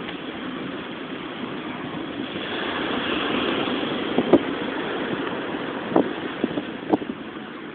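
Steady rush of ocean surf on the beach. The rush swells for a couple of seconds near the middle, and a few short knocks stand out.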